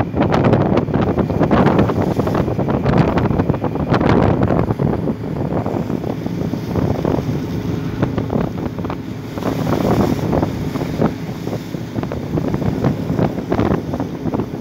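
Wind buffeting the microphone over the rush and splash of water along the hull of a moving boat, gusty and uneven, heaviest in the first few seconds.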